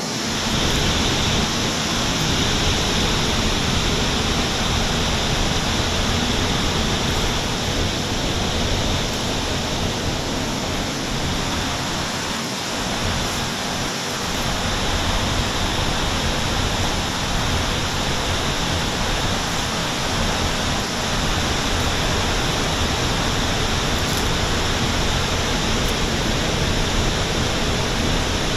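Fukiware Falls, a broad waterfall, pouring steadily: a continuous even rush of falling water.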